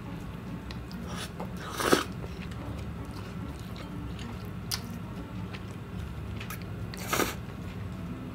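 Close-miked eating of Indomie Mi Goreng noodles: two loud slurps of noodles, one about two seconds in and one about seven seconds in, with soft chewing clicks between.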